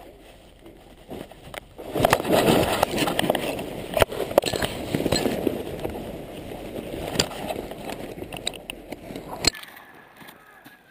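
A paratrooper landing in snow, heard close up from a camera worn by the jumper: after a quieter stretch the sound jumps suddenly about two seconds in to several seconds of heavy rustling and scraping, with a few sharp knocks, as the jumper and camera drag through snow, dry grass and parachute fabric. It cuts off abruptly near the end.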